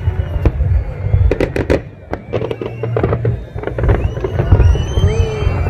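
Large fireworks display going off: a dense run of sharp bangs and crackles over a continuous deep rumble, with curving high tones near the end.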